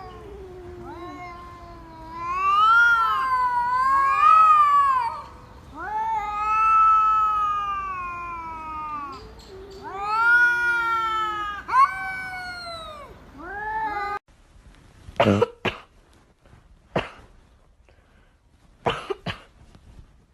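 A cat yowling in long, drawn-out calls that slide up and down in pitch, several in a row. About fourteen seconds in the sound cuts abruptly to a few short, sharp cough-like bursts a second or two apart.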